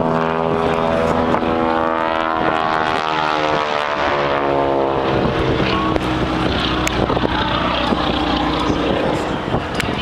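Aerobatic propeller plane's engine and propeller drone overhead. Its pitch falls steadily over the first five seconds as the plane passes, then holds steadier.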